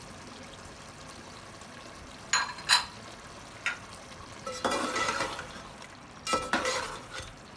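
A soft pour of lemon juice into a pot of chicken curry, followed by two sharp clinks about two and a half seconds in. In the second half a metal spatula stirs and scrapes the aluminium pot in two bouts.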